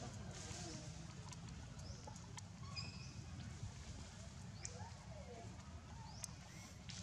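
Faint animal calls: a few short rising high chirps and a brief high call, with scattered light clicks over a low steady rumble.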